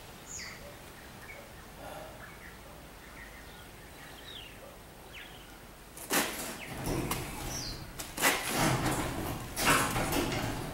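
Faint bird chirps, then from about six seconds in three loud stretches of metal scraping and clanking, about a second each, as the heavy steel welding table is worked by hand.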